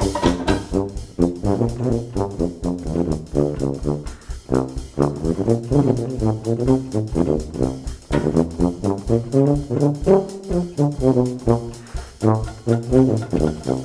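Background music with brass instruments carrying the tune over a steady beat.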